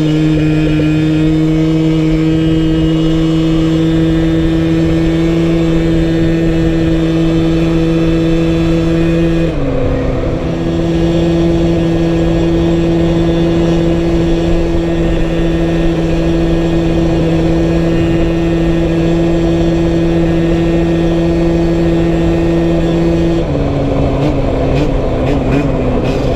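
A liquid-cooled TPR 86cc two-stroke scooter engine running under load at one steady pitch, with wind noise over the microphone. The engine note dips briefly about ten seconds in, then drops lower and wavers up and down near the end.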